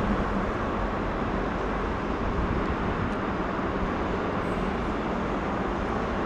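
Steady road-traffic noise: a continuous even rumble of passing vehicles with no distinct events.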